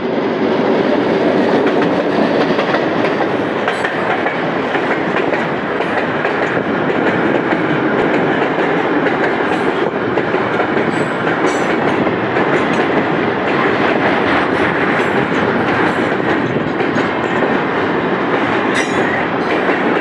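Freight train passing close by: the NCA GR12W diesel locomotive goes by first, then flatcars loaded with steel coils roll past with a steady wheel rumble and clickety-clack, with brief high squeaks and clicks now and then.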